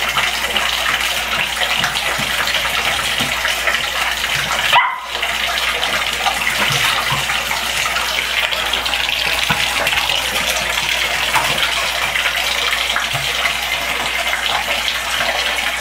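Water running from a bathtub tap and splashing onto the tub floor, a steady hiss that briefly cuts out about five seconds in.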